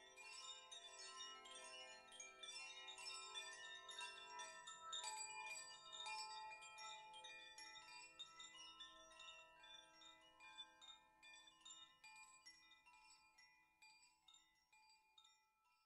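Chimes shaken and ringing, with many quick overlapping bright tones. The strikes thin out and the ringing fades gradually toward the end.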